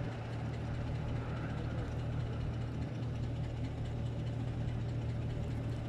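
Steady rumble of a twin-engine jet airliner's engines as it rolls out along the runway just after touchdown.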